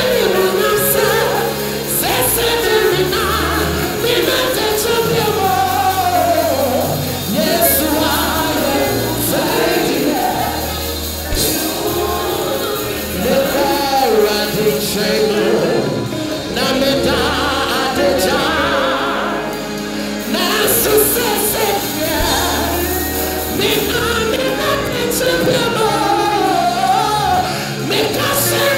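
Live gospel music: a man sings lead through a microphone over a band with keyboard and electric guitar, the melody wavering over a steady bass line.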